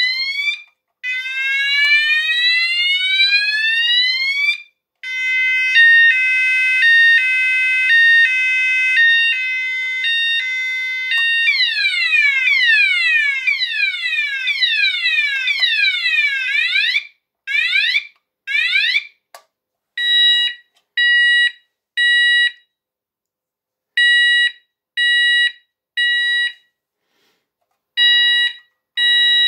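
Sonos DC multi-tone electronic fire alarm sounder (Chubb/Esser) cycling through its tones as its DIP switches are reset: first slow rising sweeps, then a stepping alternation between pitches, then quick falling sweeps, and from about two-thirds in a steady tone pulsed in groups of three beeps with short pauses between groups.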